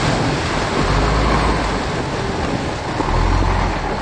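Land Rover Discovery 4x4 fording a shallow river: the engine running under a steady rush and splash of water thrown up by the wheels.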